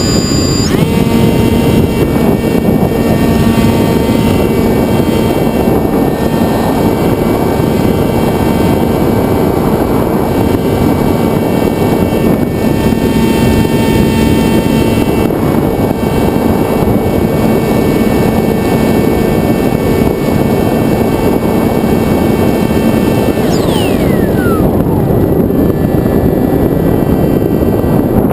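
Electric motor and propeller of a Sky Surfer RC plane, heard from the plane itself over heavy wind rush: a steady whine with a low hum under it. The pitch jumps up right at the start, and about 24 seconds in the whine falls away as the throttle comes back.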